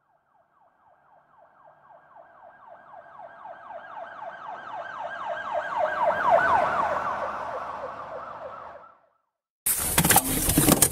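Electronic siren in a fast yelp, its pitch sweeping over and over a few times a second. It swells from very faint to loud and then fades away, as if passing by. Near the end, a sudden loud burst of noise with clicks cuts in.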